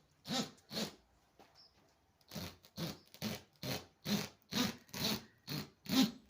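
Carpet being cut in a rhythmic run of short rasping strokes, about two a second, with a pause of about a second near the start.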